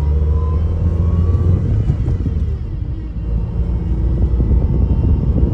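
Ford Focus Zetec engine running with a loud, rough grinding from its broken power steering. A faint rising whine comes through in the first second and a half.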